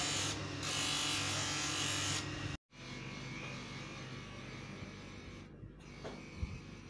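Steady mechanical buzz, a low hum under hiss, that cuts off abruptly about two and a half seconds in; after it only faint background noise with a few soft knocks.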